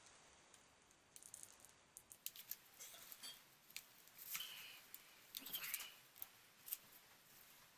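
Faint clicking and crackling of a shattered glass tablet screen being pried off its frame, small pieces of glass snapping and breaking away, with two longer scrapes about four and five and a half seconds in.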